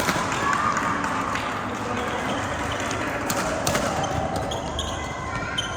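Badminton rally on an indoor court: rackets strike the shuttlecock with sharp smacks several times, two of them in quick succession midway, and shoes squeak briefly on the court floor.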